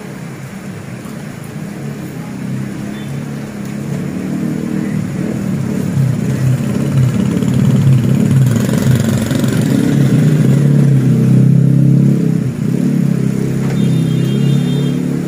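A small motorcycle engine passing close on a wet road, growing louder to a peak about two-thirds of the way through, then easing off, over the steady hiss of heavy rain. A brief high tone sounds near the end.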